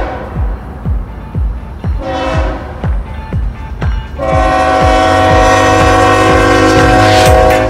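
Diesel freight locomotive horn sounding a chord: a short blast about two seconds in, then a long, loud blast from about four seconds in. Background music with a steady beat runs underneath.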